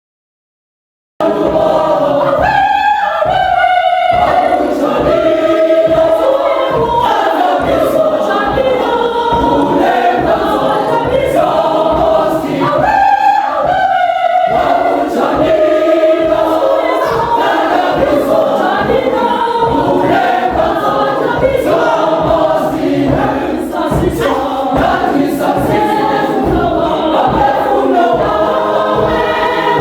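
Choir singing, gospel-style music, coming in suddenly about a second in after dead silence.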